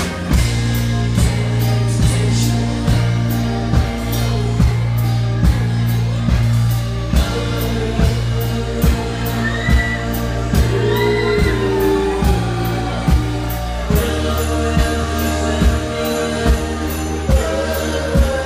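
Live band playing on stage: a steady drum beat, bass, keyboard and guitar, with lead and harmony vocals. The bass line shifts about three-quarters of the way through.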